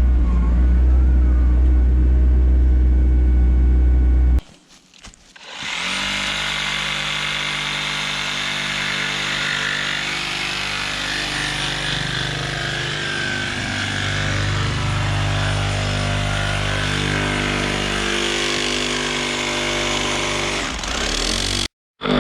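A machine engine running with a steady low hum. About four seconds in the sound cuts out briefly, then a harsher, steady machine sound with a higher whine and hiss runs on until an abrupt cut near the end.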